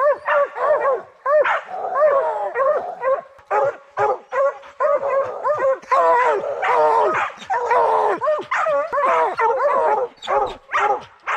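Several bear hounds baying at a treed bear, their bawls and barks overlapping without a break.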